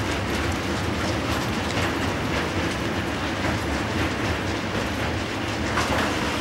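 Freight train of intermodal trailer wagons rolling along the tracks, a steady noise of wheels on rails with a few faint knocks.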